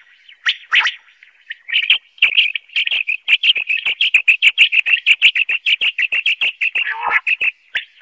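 Common quail calling: a few sharp high notes in pairs, then a fast run of high chirps, several a second, that keeps going for about six seconds.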